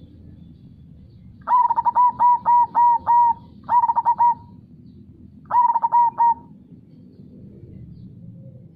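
Zebra dove (perkutut) singing its rolling cooing song: three phrases of quick repeated coos, the first and longest about a second and a half in. A faint steady low rush of flowing river water runs underneath.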